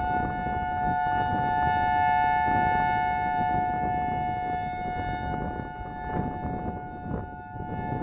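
Federal Signal EOWS 612 electronic outdoor warning siren sounding its steady alert as two held tones together, while its horn array rotates. It swells about two seconds in as the horns come round and fades as they turn away, with wind rumbling on the microphone underneath.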